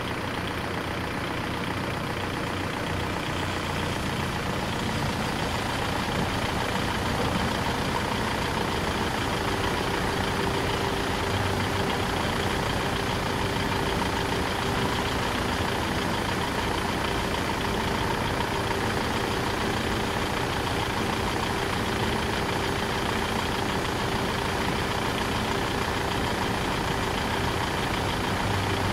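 Car engines idling steadily, growing a little louder over the first few seconds and then holding.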